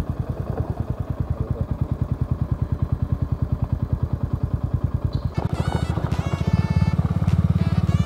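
Motorcycle engine running with a fast, even low pulse; about five seconds in, background music comes in over it and the sound gets louder.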